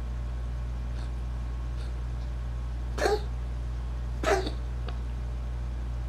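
A cat hacking twice, about a second apart: two short retching heaves, which the owner takes for a cat trying to bring up a hairball.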